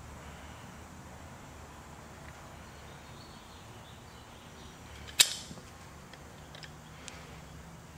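Low background hum, broken about five seconds in by one sharp metallic click as pliers meet the camshaft nose of a bare Chevy 350 engine block.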